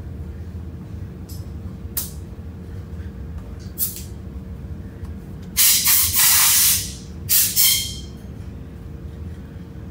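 Acetone sprayed from a hand spray bottle: two hissing sprays, a longer one about five and a half seconds in and a shorter one just after. The acetone is a solvent for cleaning the lower-unit parts. A couple of faint clicks come earlier.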